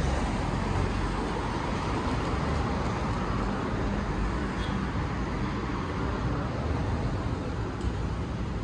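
Steady city road traffic: an even wash of engine and tyre noise from cars and trucks on a busy avenue.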